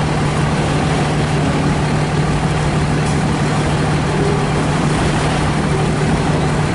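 Steady vehicle rumble with a constant low hum, unchanging throughout.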